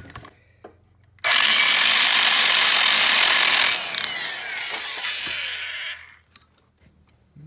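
Electric valve seat grinder spinning its stone on a 45-degree valve seat in a cast-iron engine head. About a second in it starts with a loud, steady grinding hiss; after two or three seconds it is switched off and whines down to a stop.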